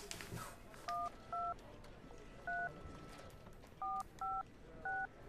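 Mobile phone keypad tones as a number is dialled: six short two-note beeps at uneven intervals.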